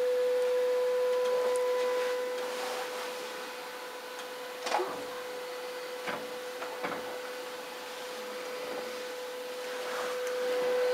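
A steady whine, one held tone with overtones, with a few faint clicks about halfway through.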